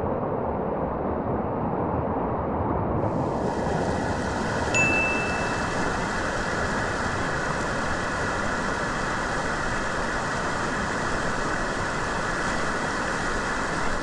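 Steady rushing of a waterfall, turning brighter and fuller about three seconds in. About five seconds in comes a single short, high, bell-like ding.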